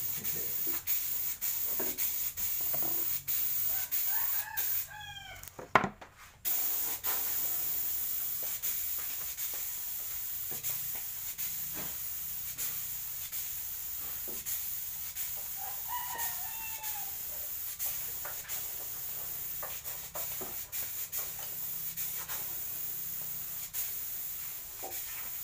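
A rooster crowing, twice: once about four seconds in and again past the middle. Scattered sharp clicks and knocks of handwork run throughout, with one loud knock at about six seconds, over a steady low hum.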